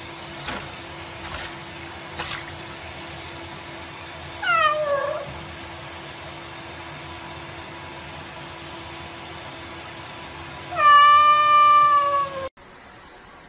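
Cat meowing twice while lying in a sink under a running tap: a short falling meow about four and a half seconds in, then a long, louder meow near the end that cuts off suddenly. The tap's water runs steadily beneath, with a few light splashes in the first couple of seconds.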